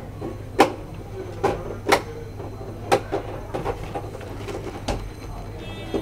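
Irregular sharp clicks and knocks of LED TV parts being handled and fitted back together, over a steady low hum.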